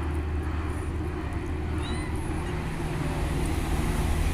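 Cat meowing a few times, faint and short, over a steady low rumble.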